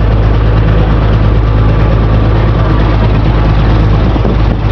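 A boat's engine running loud and steady with a deep, even hum, under a constant rushing noise.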